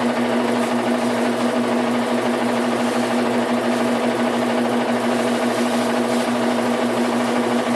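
Washing machine running with a steady, unchanging mechanical hum and whir: the unwanted noise the machine is making.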